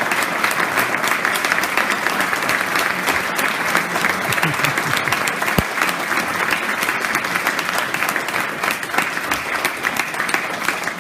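Audience applauding steadily, a dense, even patter of many hands clapping. A single low thump comes about halfway through.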